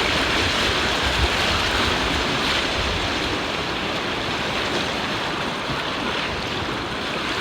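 Steady rush of river water through rapids, a continuous even hiss.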